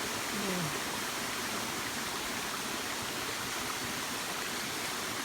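Waterfall water falling and running steadily, an even rushing noise.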